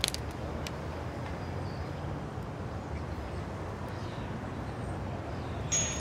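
Steady outdoor street ambience with a low traffic rumble. A newspaper's pages crackle right at the start, and music comes in near the end.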